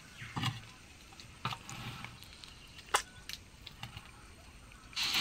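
Short scrapes and clinks from time to time, with a louder wet scrape near the end: a trowel loading wet cement mortar onto a clay terracotta roof tile.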